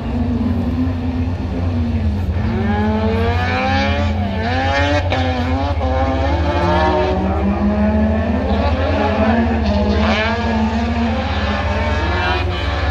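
Autocross race car engines accelerating hard around the circuit, their pitch repeatedly rising and dropping back through gear changes, over a steady low rumble.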